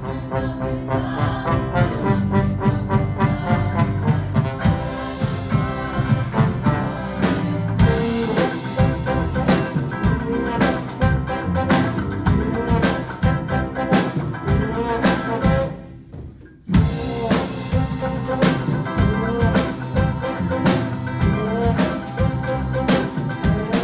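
A contemporary church band playing: drum kit, bass and electric guitars, keyboard, trombone and cello, with voices singing. The music drops out for a moment about sixteen seconds in, then comes back in.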